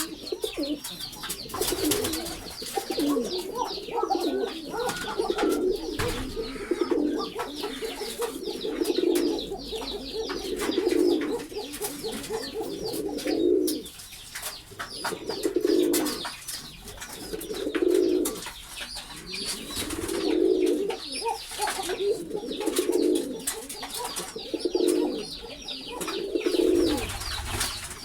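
Domestic pigeons cooing, the low coos overlapping in a continuous stream for about half the time, then coming in separate bouts about every two seconds. A busy layer of short high chirps runs throughout.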